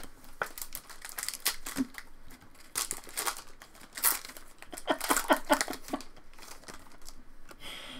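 Shiny foil wrapper of a Topps Allen & Ginter Chrome trading card pack being torn open and crumpled by hand, a run of crackly crinkling.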